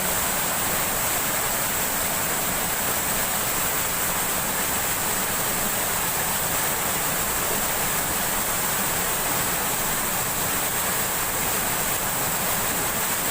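Steady rush of flowing stream water, an even unbroken hiss.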